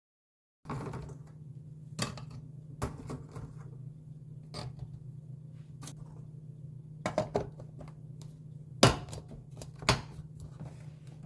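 Kitchen handling sounds: scattered clicks and knocks of dishes and utensils being set down and moved, over a steady low hum, with two louder knocks near the end.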